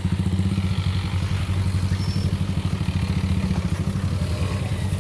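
A vehicle engine running steadily, with an even low pulsing.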